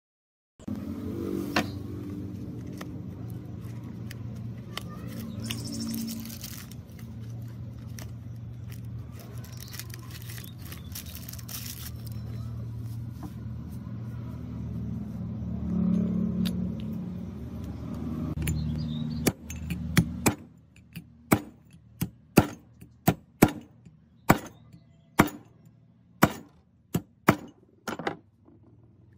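A machine runs with a steady low hum for about twenty seconds and then stops. A series of sharp taps follows, about one a second.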